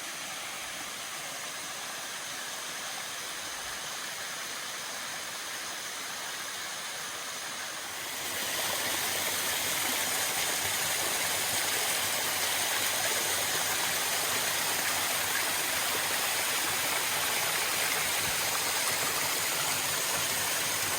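Death Brook Falls, a small woodland waterfall, with water rushing and splashing steadily. About eight seconds in it becomes noticeably louder and brighter, then holds steady.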